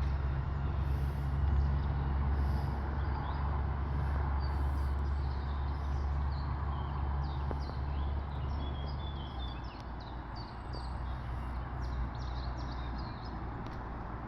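Small birds chirping over a steady low rumble. The rumble drops in level about nine and a half seconds in.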